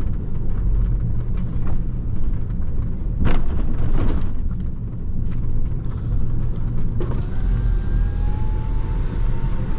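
Iveco lorry's engine and cab noise while driving slowly, a steady low rumble with a couple of knocks or rattles about three to four seconds in. A faint whine rises slowly in pitch over the last few seconds.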